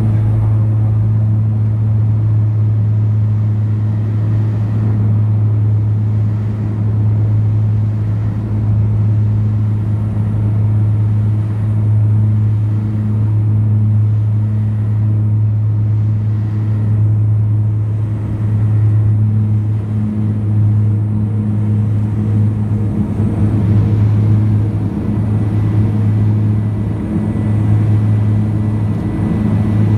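BAe Jetstream 32's Garrett TPE331 turboprop engines and propellers at takeoff power, heard from inside the cabin beside the engine: a loud, steady drone with a deep propeller hum, through the takeoff roll and lift-off.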